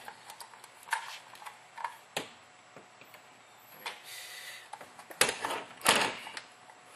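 Scattered small clicks and knocks of plastic airsoft rifle parts and wiring being handled during reassembly, with a brief scrape about four seconds in and the sharpest clicks near the end.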